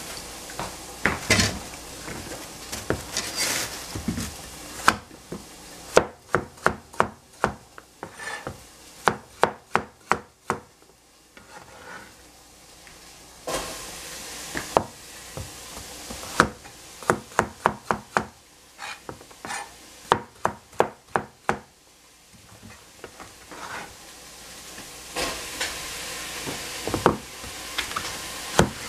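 Cleaver chopping vegetables on a plastic cutting board: runs of quick knocks, several a second, broken by short pauses.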